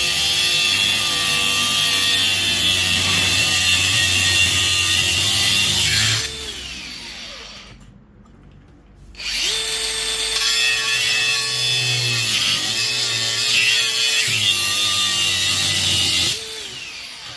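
Angle grinder cutting through the side of an electric fan motor, in two cuts. The first cut runs for about six seconds and the grinder winds down with a falling whine. About three seconds later it spins back up with a rising whine and cuts again until near the end, then winds down once more.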